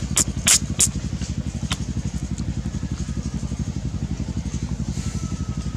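A small engine running steadily at idle, a fast even low throb, with a few sharp clicks in the first second.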